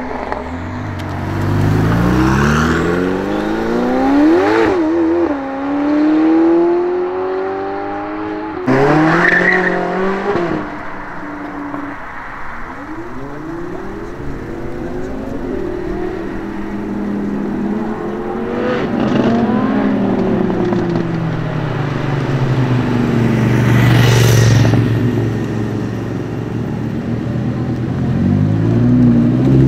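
A string of sports cars accelerating hard and revving, the engine note climbing and dropping with each gear change. First a Ferrari 488 Pista's twin-turbo V8 pulls away, then other cars follow, among them an Audi R8's V10, with a loud rise about two thirds of the way through.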